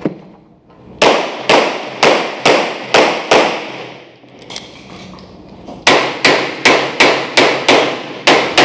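9mm Glock 34 pistol firing two rapid strings of shots, each crack followed by reverberation from the walls of an indoor range: six shots about half a second apart, a pause of about two and a half seconds, then about eight faster shots.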